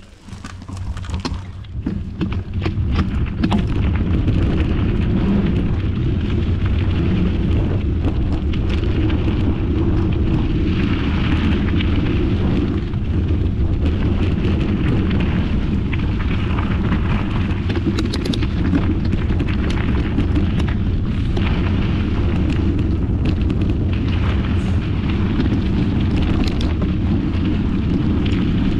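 Wind buffeting an action camera's microphone as a mountain bike rides down a dirt trail. It builds over the first few seconds as the bike picks up speed, then runs on as a steady rumble, with many small rattles and knocks from the bike and tyres on the rough ground.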